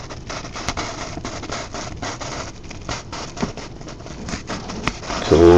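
A printed paper sheet being handled and slid along: irregular rustling with many small ticks.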